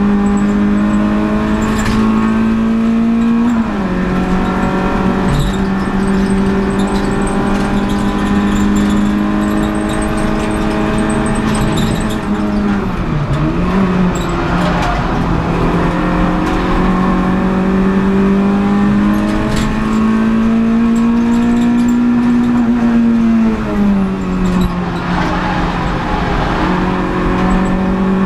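Renault Clio Sport 182's 2.0-litre four-cylinder engine heard from inside the cabin while racing, holding a steady high note, its pitch dropping and recovering three times.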